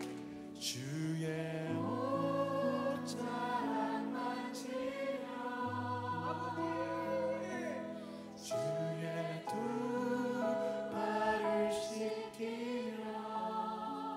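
A contemporary worship band plays a slow song with voices singing. A five-string Alleva Coppolo LG5 electric bass holds long low notes underneath.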